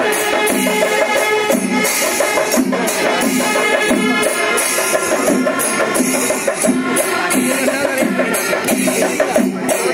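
Kerala temple percussion ensemble (chenda melam) playing live: massed drums with clashing, ringing cymbals in a dense, steady rhythm.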